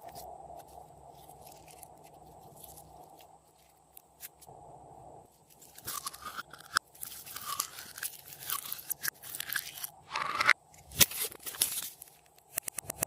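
Glossy slime being squished and mixed by hand. It is faint, with scattered clicks, for the first few seconds, then from about six seconds in comes dense crackling and crunchy squishing, ending with a few sharp clicks.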